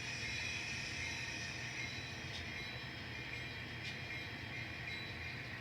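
N scale model train running along the layout track: a steady whirring with a couple of faint clicks.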